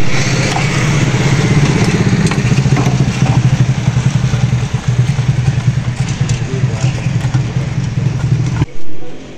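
An engine idling steadily with a fast, even pulse, then cutting off suddenly near the end.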